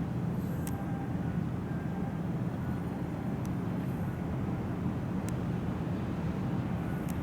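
Car ferry's engines running with a steady low rumble.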